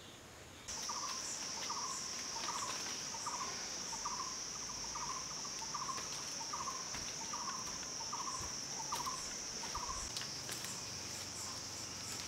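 Steady high-pitched drone of insects, with a bird repeating a short call over and over, about once every three-quarters of a second, that stops a couple of seconds before the end. Both start abruptly less than a second in.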